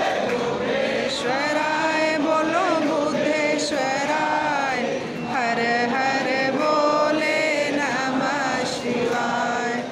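Hindu devotional chanting sung in long, held notes that glide up and down, with short breaks about five seconds in and near the end.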